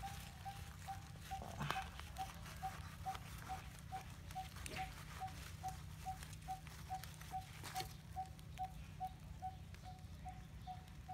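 A knife cutting an eel on a bed of leaves, with a few sharp clicks of the blade. Behind it, a monotonous short note repeats steadily about twice a second over a low steady rumble.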